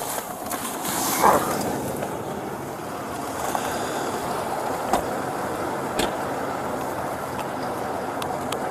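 A patrol car door shuts with a thud about a second in. Then comes the steady noise of an outdoor parking lot with road traffic, with a couple of light clicks.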